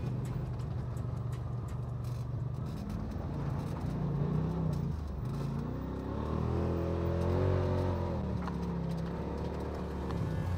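Side-by-side UTV's engine running under way, heard from inside the open cab; it revs up about halfway through and eases off again.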